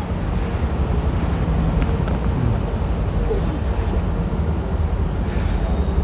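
Motorcycle engine running at low speed amid road traffic: a steady low rumble with faint rising and falling engine notes.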